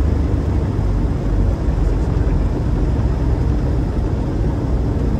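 Van's RV-10's engine and propeller running, heard inside the cabin as a steady low drone with airflow noise while the plane rolls along the runway.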